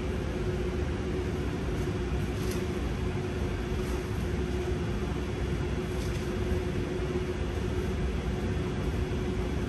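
Steady low hum and rumble of restaurant machinery with one constant tone running through it, and a few faint light ticks.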